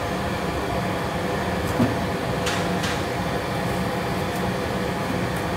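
Steady mechanical hum, with a small click a little under two seconds in.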